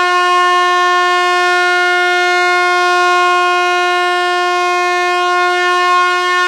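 Truck air horn sounding one long, loud blast, held steady at a single pitch.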